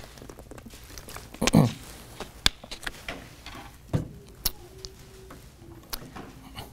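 Handling sounds at a wooden pulpit: a plastic water bottle drunk from and set back down, with a few light knocks and clicks and the rustle of Bible pages turning.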